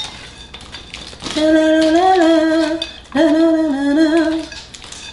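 A woman humming two long held notes, each wavering slightly in pitch, with light clinks of a spoon scooping chocolate-coated cereal from a glass bowl around them.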